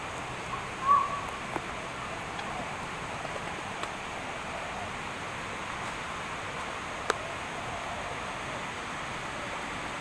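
Steady outdoor background hiss, with one short, loud call about a second in and a single sharp click about seven seconds in.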